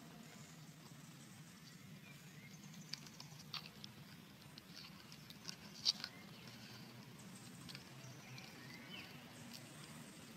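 Faint outdoor background with a steady low hum, scattered light clicks and ticks, one sharper click about six seconds in, and a few faint high chirps near the end.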